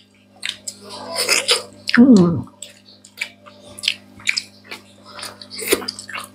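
Close-up eating sounds: people chewing and smacking their lips, with many short wet clicks and squishes. There is one brief voiced 'mm' about two seconds in, over a steady low hum.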